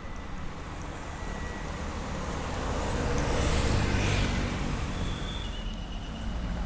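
Road traffic: a vehicle passes, its noise swelling to a peak about four seconds in and then fading, over a steady low engine rumble.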